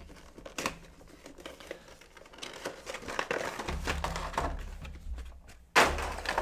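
A toy package being opened by hand: scattered rustles and clicks of cardboard and plastic packaging, then a sudden louder crinkling of plastic near the end.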